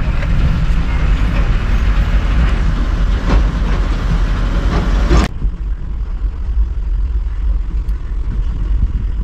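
Inside the cab of an Eicher Terra 16 tipper truck on the move: the diesel engine rumbles and there are sharp knocks and rattles. About five seconds in the sound cuts abruptly to a quieter, duller low rumble of a vehicle driving on a dirt track.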